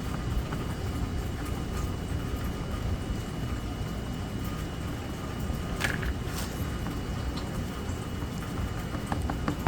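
Steady rain with a low, even rumble, and a few light taps about six seconds in and near the end.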